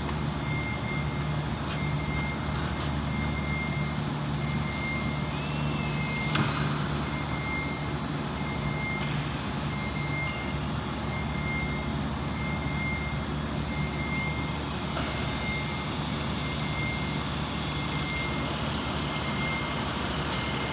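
Steady machinery hum with a continuous high, slightly broken beeping tone over it, and a few short knocks from handling objects.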